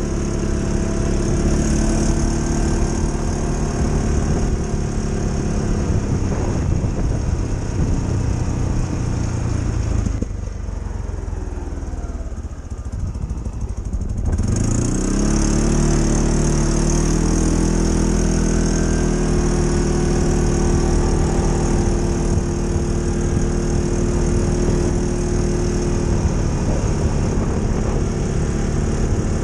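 ATV engine running at a steady cruising speed; about ten seconds in it eases off and the revs fall as the quad slows, then about fourteen seconds in the revs climb again as it accelerates and settle back into a steady run.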